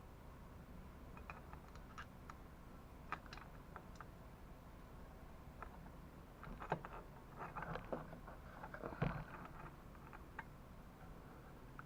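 Light, scattered clicks and taps of parts and hand tools being handled during bicycle engine-kit assembly, getting busier with a run of clatter in the second half and one louder knock about nine seconds in.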